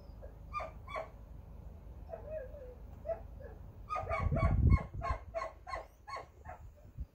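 A dog's high, short yelps and whines: a few single calls and a wavering whine, then a quick run of about eight yelps at roughly three a second. A low rumbling thump comes with the start of the run.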